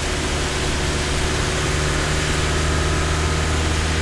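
Old Mk2 ambulance's engine running steadily while driving, heard from inside the cab, with a steady hiss of tyres on the wet road and rain.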